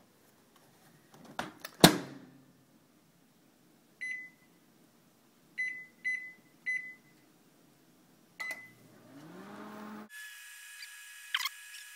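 Microwave oven door shut with a clunk about two seconds in, then five short keypad beeps as the cooking time is entered and started. The oven then starts up, its hum rising in pitch and settling into a steady run near the end.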